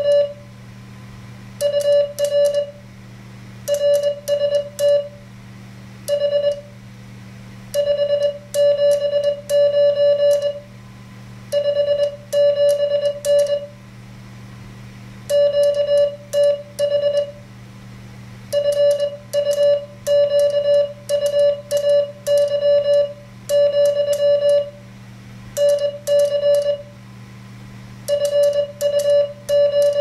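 Morse code sidetone from an MFJ-493 memory keyer: a single-pitch beep keyed into dits and dahs by hand on a paddle, in word-length groups with short pauses, each element starting and stopping with a sharp click. The code being sent is a CW contact reply, a signal report and location ('UR RST 579 … QTH Fuquay, NC').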